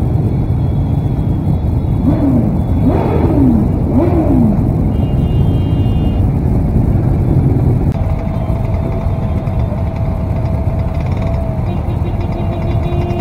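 Motorcycle engines running in slow, packed traffic, a steady low rumble with wind noise. A few quick revs rise and fall away about two to four seconds in, and a steady high hum sets in about eight seconds in.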